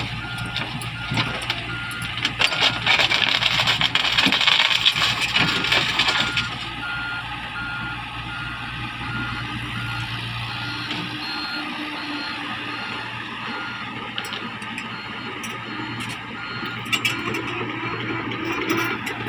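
Komatsu PC-70 excavator's engine running with its travel alarm beeping in a steady, even rhythm. The machine is louder for the first six seconds, and its low engine hum drops away about eleven seconds in while the beeping carries on.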